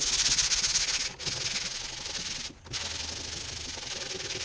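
Hand-sanding fiberglass-reinforced body filler on a van roof, the sandpaper cupped in the hand with no sanding block: a steady scratchy hiss of back-and-forth strokes. It breaks off briefly about a second in and again for a moment about two and a half seconds in.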